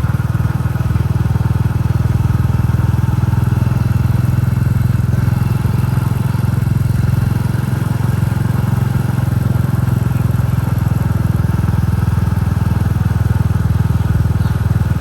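Royal Enfield Classic 350's single-cylinder four-stroke engine thumping steadily through its exhaust while the bike is ridden at an even speed.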